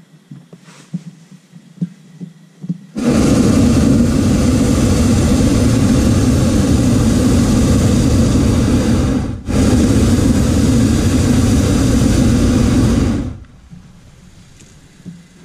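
Hot air balloon's propane burner firing, loud and steady, starting suddenly about three seconds in, breaking off for a split second, then firing again for about four more seconds before shutting off.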